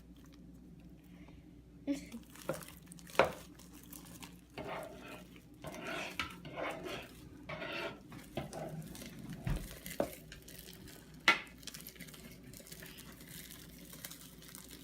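Hands kneading freshly activated glitter-glue slime in a bowl: soft irregular squishing and handling noise, with several sharp knocks against the bowl.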